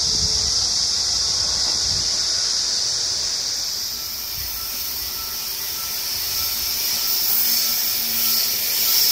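Train running over the rails: a steady hiss of wheels on track, with a high wheel squeal building over the last few seconds.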